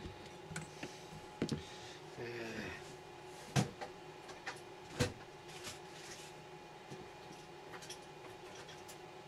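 Screwdriver and screw working against the metal amplifier chassis: scattered small clicks and knocks as the screw is backed out and handled. Two sharper knocks stand out, about three and a half and five seconds in.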